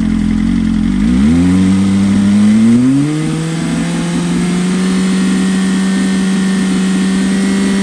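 BMW M1000RR Competition's inline-four engine through an Austin Racing V3 Mini slip-on exhaust, revved up from idle in two steps, about one and three seconds in, then held at a steady high rev for a 5000 RPM sound test.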